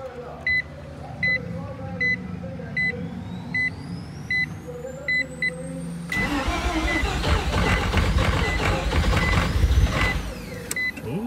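An electronic beeper sounds about every three-quarters of a second over a low hum and a rising whine. About six seconds in, the starter cranks the freshly rebuilt Mazda 13B twin-rotor engine loudly for about four seconds without it catching, which the owner suspects is because the fuel tank is empty.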